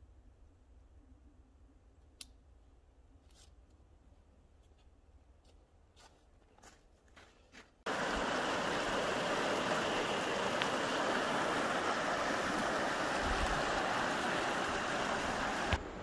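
A few faint scattered clicks and taps, then about halfway through a shallow stream flowing over rocks comes in, a loud steady rush of water that drops off sharply near the end.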